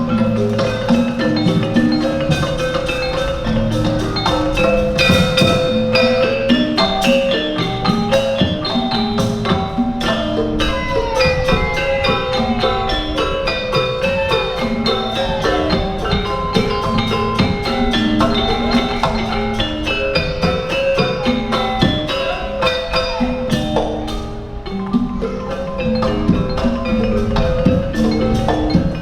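Sundanese gamelan degung ensemble playing: bronze gongs and metallophones struck in a dense, steady interlocking pattern with drum strokes.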